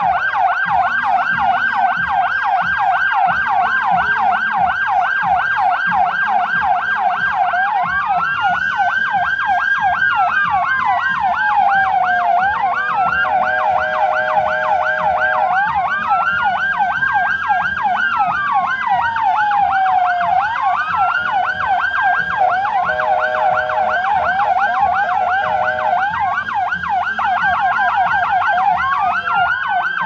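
Several vehicle sirens sounding together: a fast yelp sweeping up and down several times a second, overlapped by slower rising-and-falling wails and short steady tones.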